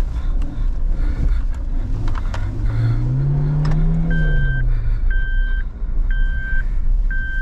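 Maruti Suzuki Jimny's four-cylinder petrol engine heard from inside the cabin, revving up and easing off again as it drives over rocky ground, with knocks and rattles from the bumps. From a little past halfway an electronic beep repeats about once a second.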